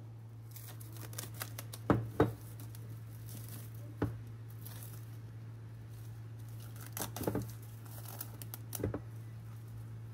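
Plastic cling film crinkling and tearing as it is peeled off a bowl of fermented dough, with a few light knocks, over a low steady hum.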